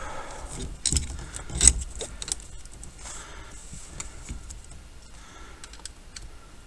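Small metal parts and hand tools jingling and clicking while a steering column is worked on by hand, with two louder knocks about one and two seconds in, then lighter scattered clicks.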